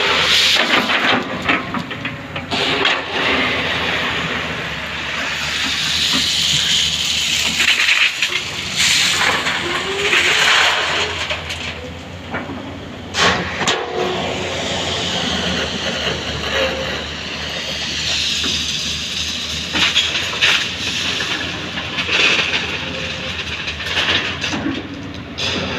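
Heavy diesel machinery working: an engine runs steadily under repeated loud hissing surges, with sharp knocks now and then, as an excavator loads a tipper truck.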